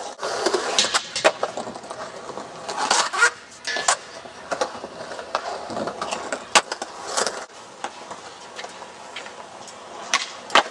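Skateboard wheels rolling on concrete ramps, with a number of sharp clacks from the board striking the concrete and coping.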